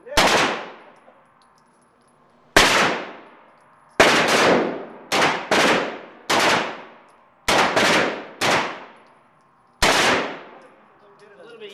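An AR-style carbine firing single shots, about eleven at uneven intervals with some in quick pairs. Each shot rings on in a long echoing decay off the walls of the indoor range.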